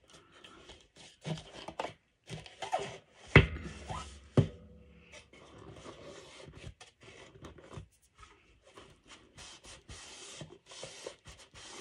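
Black cardstock drawers being handled and pushed into their sleeves, with scraping and two sharp knocks a few seconds in. A tissue then rubs back and forth over the cardstock until near the end.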